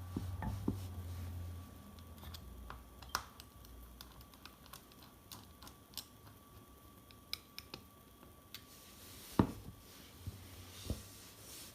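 Scattered small clicks and taps of a Ruger GP100 revolver being handled at the end of its reassembly, with two louder knocks near the end.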